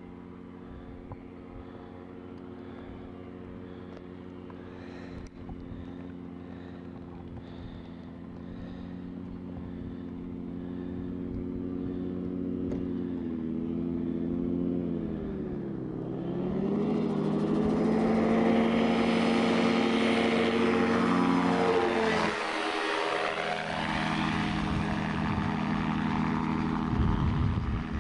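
Gyrocopter's engine and propeller droning steadily, faint at first and dipping in pitch. Just past halfway it opens up loud for a take-off, and the pitch falls as the gyro passes close a few seconds later.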